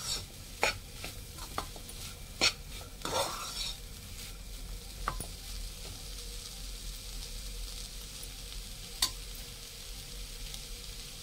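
Spoon scraping and stirring freshly cooked keema (minced meat) in a hot pan over a steady sizzle, with a cluster of clanks against the pan in the first few seconds and two single clanks later.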